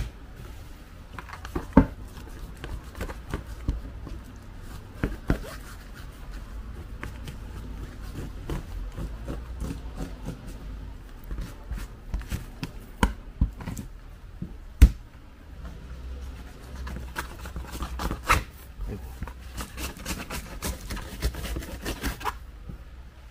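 A knife cutting and scraping through a black rockfish on a plastic cutting board: scattered knocks and clicks of the blade on the board, the loudest about halfway through, with handling and rubbing sounds between them. A low steady rumble runs underneath.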